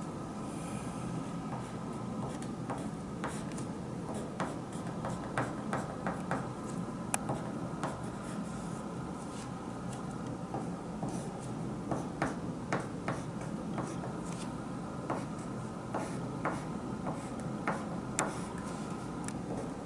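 Pencil writing on a sheet of paper: short, irregular scratching strokes as characters are written by hand.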